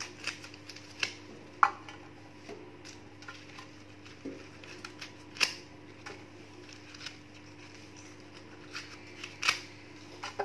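Dried banana leaves being cut into pieces: scattered crisp snips and crackles at irregular intervals.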